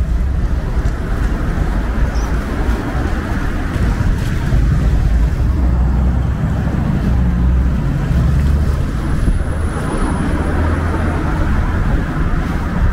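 Town-street ambience: a steady low rumble of traffic noise mixed with wind on the microphone, with no single event standing out.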